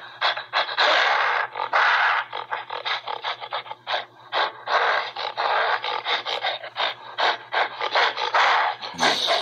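Intro sound effects: irregular bursts of hissy, scraping noise, some short and some held for about half a second, over a steady low hum.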